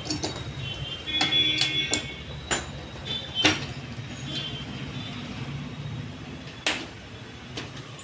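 Metal clicks, clinks and a brief squeaky scrape as the transit bolts are unscrewed and pulled from the back panel of a front-loading washing machine, with two sharper clicks midway and later on.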